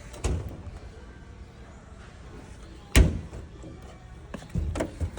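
Doors or lids of display washing machines and dryers being handled and shut: a few hard knocks and thuds, the loudest about three seconds in, with two or three more near the end.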